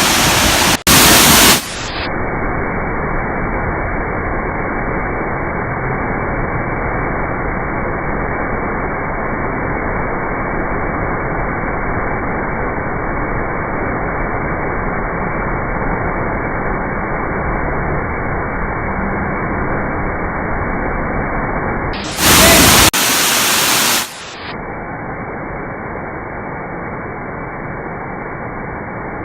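Steady, even rush of a waterfall, a dull hiss without high treble, broken by two short, louder hissing bursts: one at the start and one about 22 seconds in.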